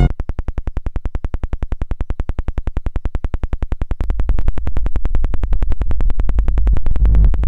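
Electronic hip-hop instrumental with no vocals. A synthesizer stutters in rapid even pulses, more than ten a second, and about four seconds in a heavy bass comes in beneath it.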